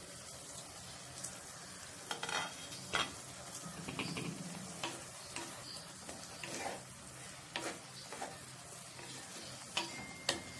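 Mushrooms, onions and capsicum sizzle steadily in a clay pot while a spatula stirs them. Irregular scrapes and sharp knocks against the pot come through the hiss, with the loudest around two to three seconds in and again near the end.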